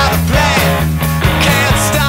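Rock background music with a steady drum beat.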